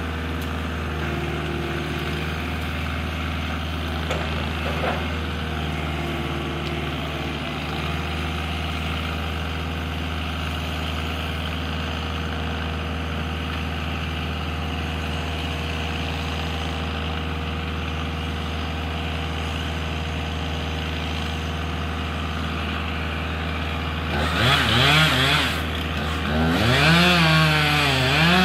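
An engine runs at a steady idle. About 24 seconds in it revs up hard and its pitch wavers up and down as it works under load: a chainsaw revving and cutting into a tree trunk.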